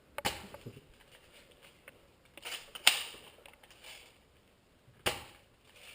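Airsoft gun fired in single shots: four short, sharp clacks spread over a few seconds, the loudest about three seconds in.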